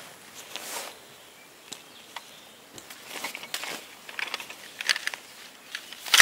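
Fabric camping bags being handled, with short scattered rustles and a few small clicks, and a louder rustle right at the end as a pole bag is pulled out.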